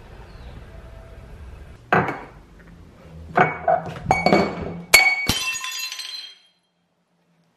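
Glass items clinking and knocking together: about five sharp clinks, each with a short ringing tone, the last ringing on until it cuts off abruptly.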